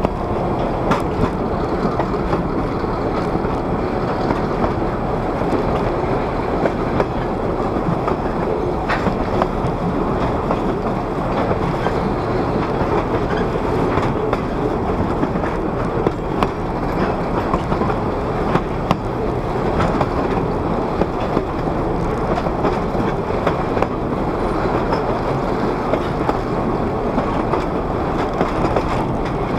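Railroad car wheels rolling slowly on the track: a steady rumble and rattle of the running gear, with a sharp click or knock now and then.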